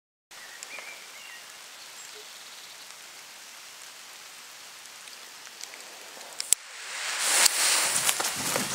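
Steady outdoor hiss, then a sharp click about six and a half seconds in. After it a loud hiss builds quickly as the homemade firework rocket ignites and spits fire from its base.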